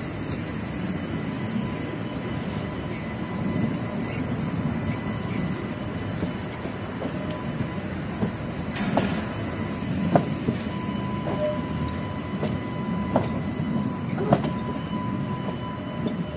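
Coupled tram set rolling slowly across a junction's points and crossings: a steady low rumble with sharp knocks from about nine seconds in as the wheels strike the switches and rail joints, and a thin wheel squeal in the curve from about ten seconds in. The track here is in very poor condition and under a 5 km/h speed limit.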